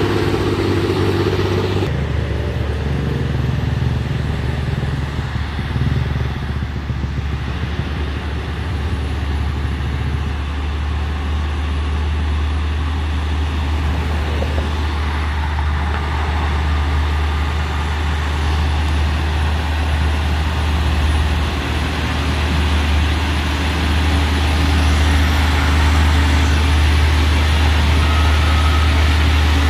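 Heavy truck engine running steadily close by, a loud, even low rumble. A second, higher engine note cuts off about two seconds in.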